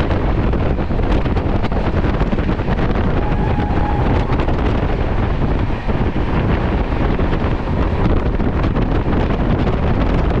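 Wind buffeting the microphone over the steady rumble of a passenger train running at speed.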